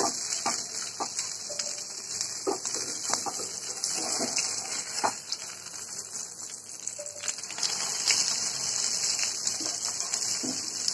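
Banana-leaf-wrapped fish parcels sizzling in mustard oil in a frying pan: a steady high hiss with scattered crackles and the knocks and scrapes of a spatula as the parcels are turned.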